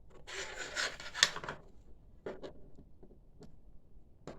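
The casing of a SanDisk SSD being prised apart: a scraping grind lasting about a second with a sharp click near its end, then a few light clicks. The halves are held by some bonding.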